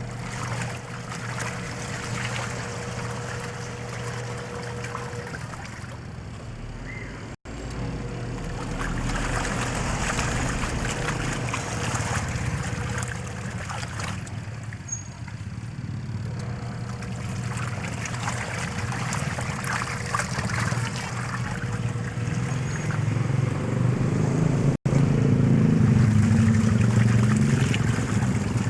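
Washing machine running, a steady motor hum under trickling and sloshing water, growing louder near the end.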